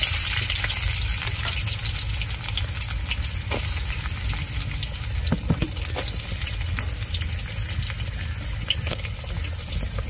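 Sliced onions sizzling in hot oil, the hiss brightest as they drop in at the start, with scattered sharp pops and crackles, over a steady low rumble.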